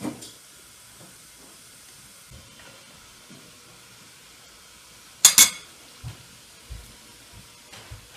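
A metal spoon clinks sharply twice against a dish about five seconds in, followed by a few soft knocks of tableware on the table, over quiet room hiss.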